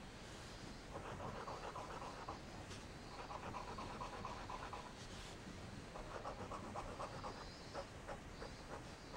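Fine nib of a Montegrappa Fortuna Mosaico fountain pen scratching across notebook paper in three bursts of quick back-and-forth test strokes, with lighter ticks of the nib between them. The nib writes smoothly but with a slightly scratchy (kari-kari) feel.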